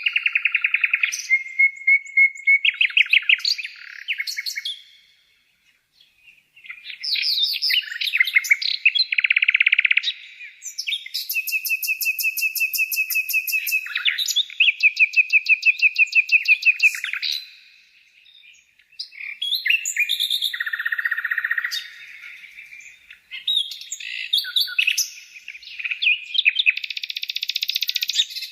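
Birdsong: phrases of fast high trills and chirps, repeated, with short pauses about five and eighteen seconds in.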